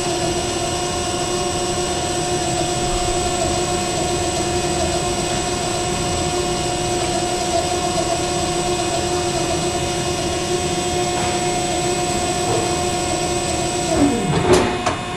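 Carell 303CN3i CNC hydraulic roll bending machine running in its automatic cycle, the rolls feeding the workpiece back through the straight section: a steady machine hum with a constant high whine.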